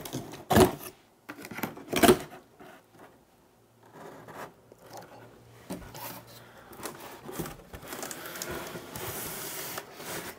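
Cardboard box being torn open: two loud rips about a second and a half apart, then cardboard scraping and rustling as the flaps are folded open.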